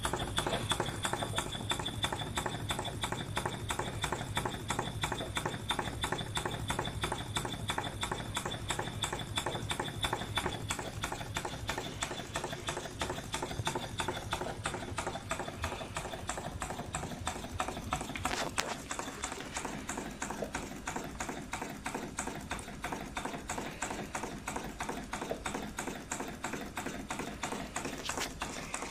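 Model O.B. Bolton-type triple-expansion engine running on compressed air: a fast, even clatter of its rods and valve gear.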